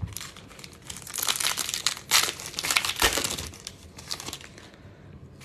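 Foil wrapper of a 2022 Bowman baseball card pack crinkling and tearing as it is pulled open by hand: a dense run of crackles from about a second in until near the end.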